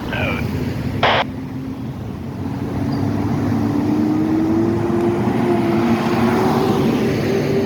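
Street traffic: a motor vehicle running close by, its engine note slowly rising over the last few seconds, over a steady low rumble. A short, sharp noise cuts in about a second in.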